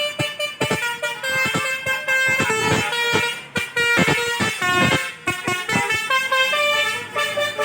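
A tour bus's telolet basuri horn playing a tune: held horn notes that step up and down in pitch, over a quick rhythm of sharp clicks.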